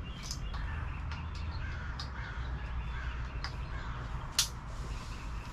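Bird calls in the background over a steady low rumble, with one sharp click about four and a half seconds in.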